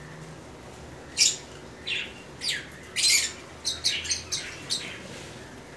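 Blue masked lovebirds (Agapornis personatus) in a flock giving short, high-pitched chirps and squawks, about eight of them from about a second in to near the end, some falling in pitch.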